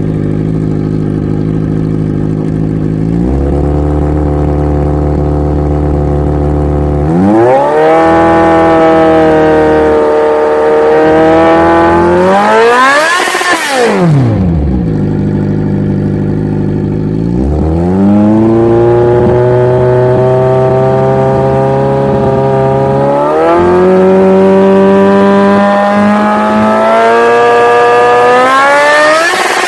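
Kawasaki Z1000 inline-four motorcycle accelerating hard through the gears and passing close by, twice. The engine note climbs and steps up at each gear change, then drops sharply as the bike goes past, about thirteen seconds in and again at the very end.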